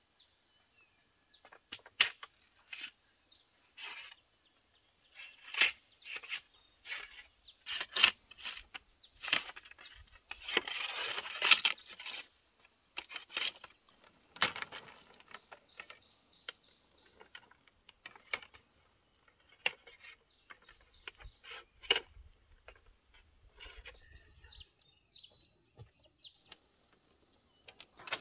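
Bamboo being worked with a machete and split into strips: irregular sharp knocks, cracks and snaps, with a stretch of rasping scraping and tearing about ten seconds in.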